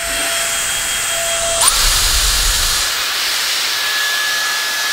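Dyson Airstrait air straightener blowing hot air in wet mode: a loud, steady rush of air with a faint motor whine. About one and a half seconds in, the whine rises sharply in pitch.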